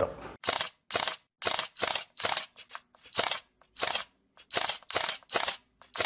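Camera shutter firing repeatedly, about a dozen short clicks at an uneven pace of roughly two a second.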